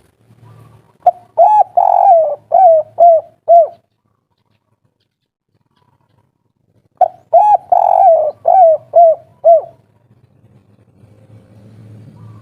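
Spotted dove (tekukur) cooing in the 'kuk 3' style: two phrases of six or seven hooked, falling coos each, the second about four seconds after the first.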